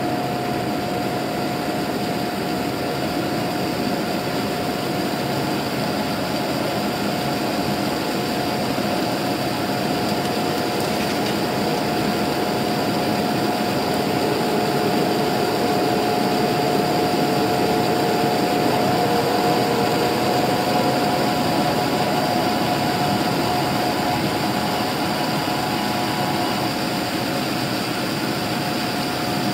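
Boeing 787-9 jet engines heard from inside the cabin, a steady drone with a high whine running through it, shortly after takeoff. The level swells a little in the middle, where a fainter tone slides slowly upward.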